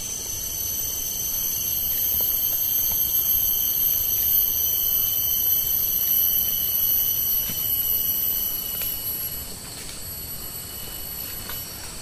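Rainforest cicadas droning: a steady, shrill chorus of several high-pitched tones that swells louder through the middle and eases off near the end.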